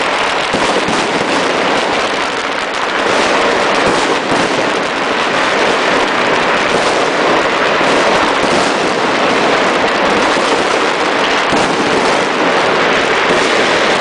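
Fireworks going off in a dense, unbroken barrage of overlapping bangs and crackling.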